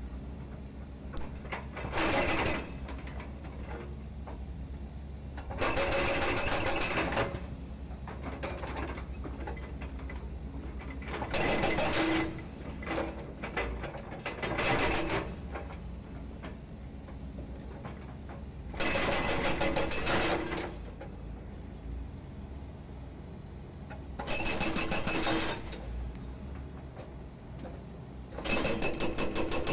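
Hydraulic breaker on a Volvo EC210D excavator hammering concrete pile offcuts in short bursts of rapid blows, about seven bursts each lasting roughly a second, with a metallic ringing in each burst. Between the bursts the excavator's diesel engine runs steadily.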